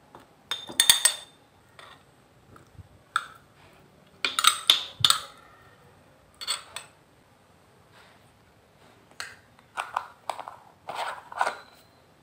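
A metal spoon scraping thick paste out of a stone mortar and clinking against the rim of a glass jar, in short irregular clusters of clicks and scrapes.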